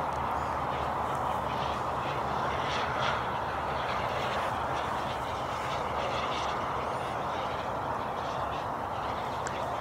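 Turbine engine of a BVM Ultra Bandit RC jet flying at a distance: a steady jet roar that holds at an even level.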